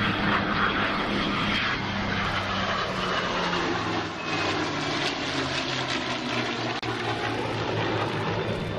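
Aircraft engines droning steadily as a formation of two P-51 Mustangs and an F-22 Raptor flies past. The low, even engine tones of the Mustangs' piston engines are mixed with the rushing noise of the jet.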